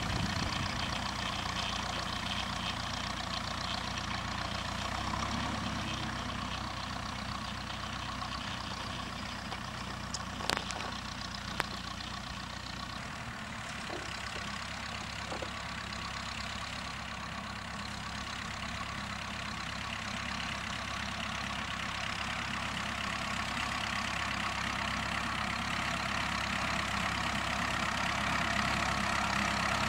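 Ferguson TEF-20 tractor's four-cylinder diesel engine running steadily while pulling a springtine grass harrow, growing louder near the end as it comes closer. Two sharp clicks about ten seconds in.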